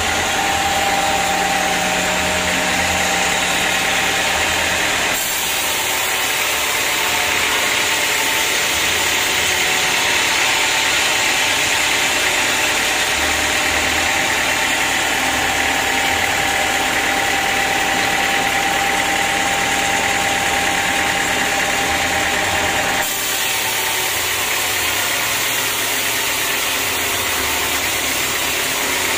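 Band sawmill running and its blade sawing lengthwise through a teak log, a loud steady mechanical whine and rasp with a constant hum underneath. The sound shifts abruptly about five seconds in and again about six seconds before the end.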